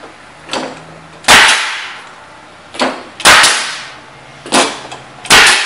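Pneumatic wide crown walking stick stapler firing 1-inch staples, three sharp shots about two seconds apart, each with a brief fading tail. A lighter knock comes just before each shot.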